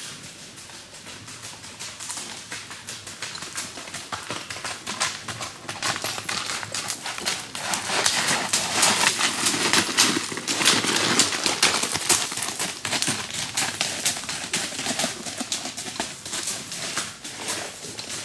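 A saddled mule's hooves clip-clopping at a flat-foot walk over a rocky, leaf-littered trail: a steady run of crunching hoofbeats that grows louder as the mule passes close, about halfway through, then fades as it moves away.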